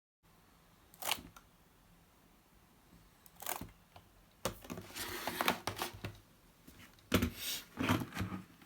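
A mechanical keyboard being handled and turned over: scattered plastic clicks and knocks, with a stretch of rustling in the middle and a few louder knocks near the end.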